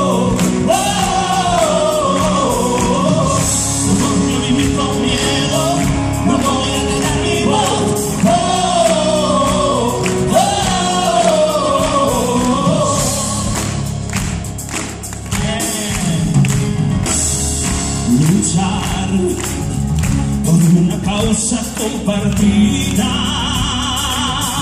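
Male vocal group singing in harmony over a live backing band, amplified through a concert PA.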